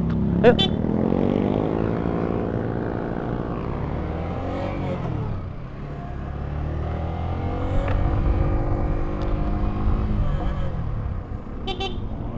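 Motorcycle engine under way, revs climbing and dropping twice as the rider accelerates and backs off. A short sharp sound about half a second in and another near the end.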